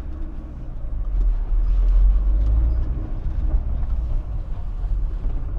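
Fiat Fiorino delivery van driving, heard from inside the cab: a steady low rumble of engine and road noise that dips just after the start and builds again as the van pulls through a turn.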